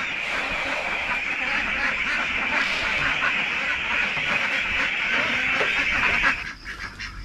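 A large flock of ducks quacking together in a dense, continuous chorus as feed goes into their pen, stopping abruptly a little after six seconds in.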